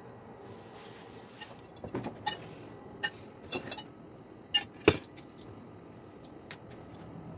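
Kitchen handling noises during baklava making: a string of sharp clicks and knocks between about one and a half and five seconds in, the loudest just before five seconds, over a low steady hiss.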